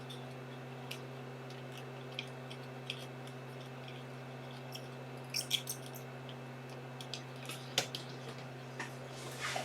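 Steady low electrical hum of bench equipment, with faint scattered clicks and ticks of soldering tools working on a laptop logic board, a few of them close together about five seconds in.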